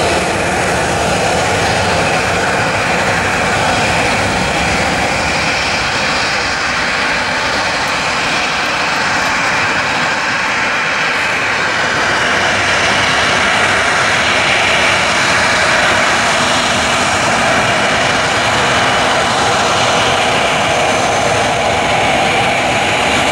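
Boeing 737 jet engines running with a loud, steady rushing noise, swelling slightly past the middle.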